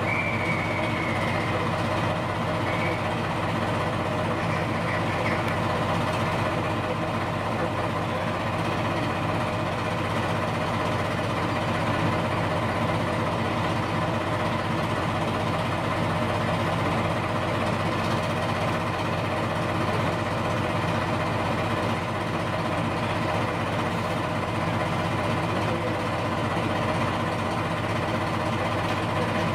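Heritage diesel locomotive engine idling steadily while the train stands in the station.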